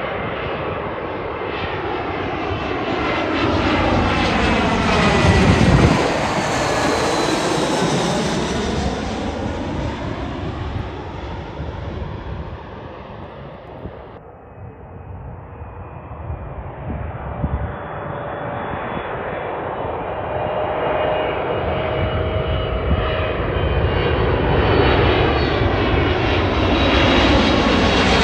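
A narrow-body jet airliner passes low overhead on landing approach: its jet rush swells to a peak about six seconds in and then fades away. After a cut about fourteen seconds in, an Emirates Boeing 777 on final approach comes on. Its twin turbofans give a steady whine over the rush and grow steadily louder as it nears overhead.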